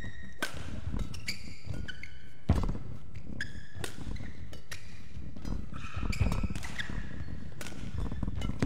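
Badminton rally in an empty hall: sharp racket strikes on the shuttlecock every couple of seconds, the loudest about two and a half seconds in, with short shoe squeaks on the court between shots.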